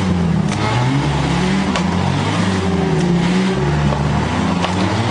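A 4x4's engine revving up and down over and over as the vehicle strains, stuck nose-down in a mud pit. Its pitch rises and falls about every second and a half, with a few sharp knocks scattered through.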